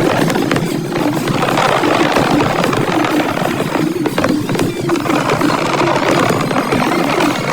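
Fireworks going off: a continuous loud rumble of bursts with several sharper bangs.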